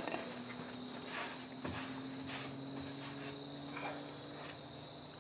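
A few faint taps and clicks of hand tools and metal parts being handled, over a steady faint high-pitched tone and a low hum.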